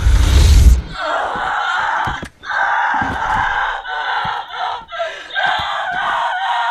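A loud low rumble that cuts off just under a second in, then a young woman screaming and gasping in strained bursts broken by short pauses, from a horror film's soundtrack.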